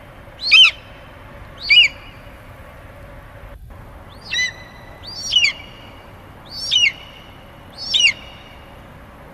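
Eagle calls: six short, high, downward-sweeping cries, with a longer pause after the second.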